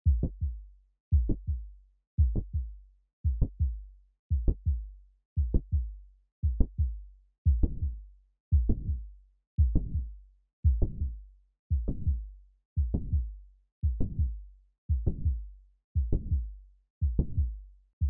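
Heart sounds of mitral valve prolapse, as heard through a stethoscope: a steady beat a little under once a second. Each beat has a mid-systolic click and a late systolic crescendo murmur running up to the second heart sound. The murmur becomes plainer about halfway through.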